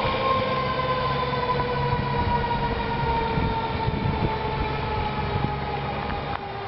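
Fire engine siren sounding one long wail that rises briefly at the start and then slides slowly down in pitch.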